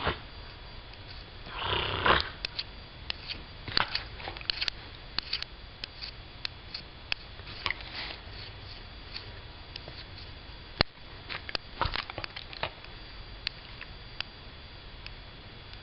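Beagle sniffing close to the microphone: a short loud breathy snort about two seconds in, then scattered small sniffs and clicks; no barking.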